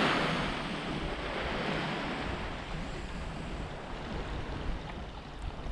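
Surf washing onto the beach, a swell of wave noise easing off over a few seconds, with low wind rumble on the microphone.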